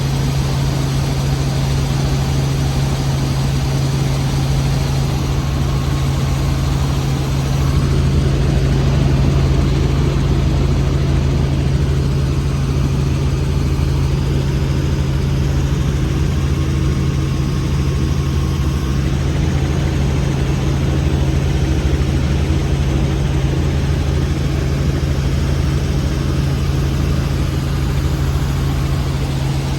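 Helicopter in flight, heard from inside the cabin: a loud, steady drone of turbine and rotors with a constant low hum, swelling slightly about a third of the way through.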